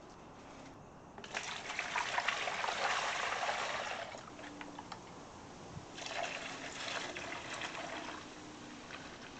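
Vinegar poured from a jug into a shallow plastic tub over a cast iron skillet, in two pours: a longer one starting about a second in and a shorter, quieter one a couple of seconds later.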